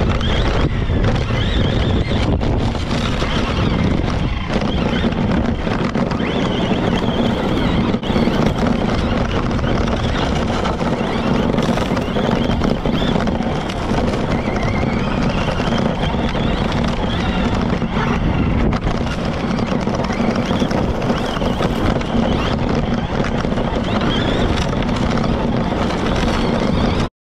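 On-board running noise of a Yokomo YZ-2T electric RC stadium truck driving on dirt: a steady rush of wind and tyre and drivetrain noise, with a faint motor whine that rises and falls with the throttle, as heard from a camera mounted on the truck.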